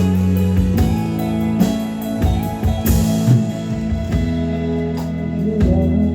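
Rock band playing live: an instrumental passage with guitar over steady held chords and a drum kit, with a cymbal crash about three seconds in.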